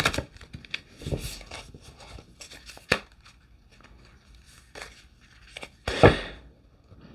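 A new tarot deck being shuffled by hand, its cards still stiff: scattered slaps and brushing of the cards, with a sharp snap about three seconds in and a louder, longer slap-and-rustle about six seconds in.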